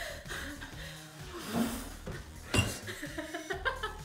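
A metal fork clinking and scraping against a ceramic bowl while noodles are eaten: a few short clinks, the sharpest a little past halfway.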